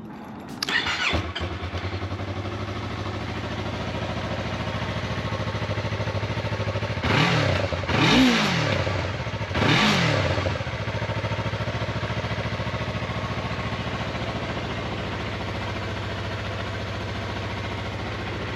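Yamaha MT-03 motorcycle engine on its stock exhaust, started with the electric starter about half a second in and settling to a steady idle. It is blipped three times, each rev rising and falling back, the middle one loudest, then idles steadily.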